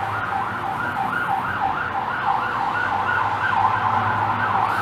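Emergency vehicle siren in a fast yelp, its pitch sweeping up and down about three times a second.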